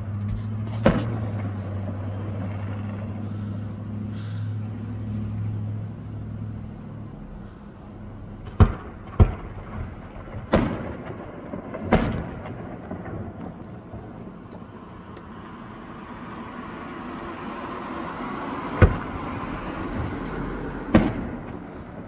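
Distant fireworks bursting: about seven sharp bangs, one near the start, a run of four about eight to twelve seconds in, and two more near the end. A low steady hum sits under the first seven seconds or so.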